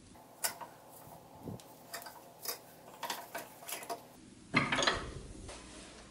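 Light metal clicks and clinks as a C-clamp screw is worked to press a steel pin into the hinged links of a toy's metal conveyor held in a vise. About four and a half seconds in, a louder clatter and rub as the linked steel conveyor is handled on a wooden bench.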